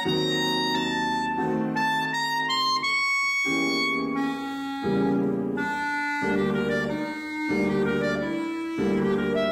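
Clarinet playing a melody of held notes that step up and down, over repeated piano chords.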